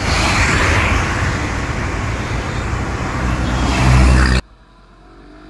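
Road traffic noise with a car passing close, loudest about four seconds in, then cut off suddenly.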